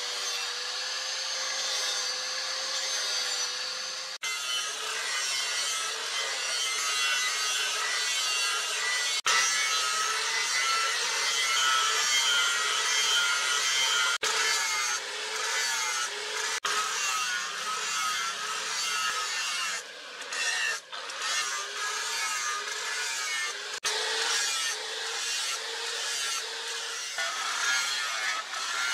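Handheld electric angle grinder cutting and grinding leaf spring steel with cut-off and grinding discs: a steady high motor whine over a gritty grinding rasp. The sound breaks off and resumes abruptly several times.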